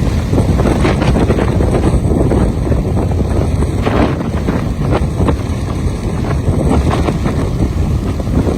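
Strong wind buffeting the microphone in a heavy, rumbling rush, over the surging of a rough, choppy sea.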